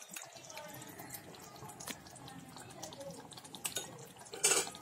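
Mutton curry simmering in an unglazed clay pot, with faint bubbling and small pops. A brief, louder rustling noise comes near the end.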